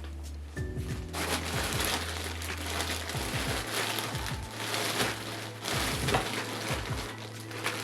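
Background music with a deep, steady bass and repeated bass drops. From about a second in, a loud, dense noise full of small clicks is laid over it.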